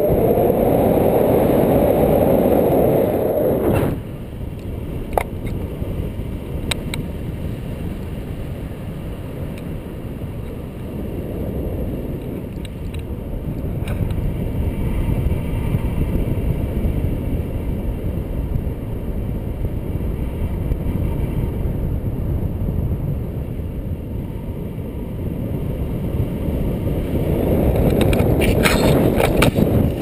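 Wind from the paraglider's forward flight rushing over the camera microphone, louder in the first few seconds and again near the end, with a few faint clicks.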